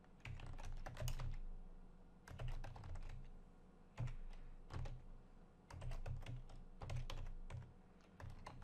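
Typing on a computer keyboard: quick runs of keystrokes in several short bursts with brief pauses between them.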